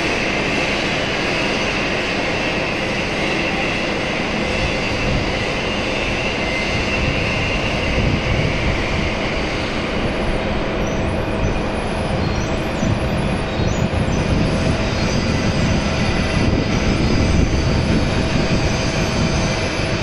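Hydraulic knuckle-boom brick loader crane running as its boom and hydraulic brick grabber move a stack of bricks: a steady mechanical rush with a faint high whine.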